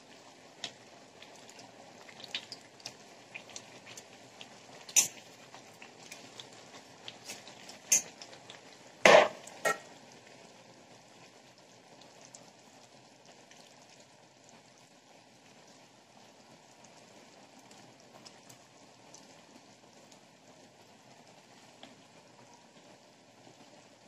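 A spatula clacking against a pan as sliced mushrooms are tipped and stirred into a thick masala gravy: a few sharp knocks through the first ten seconds, the loudest cluster about nine seconds in. Then the gravy bubbles faintly and steadily as it simmers.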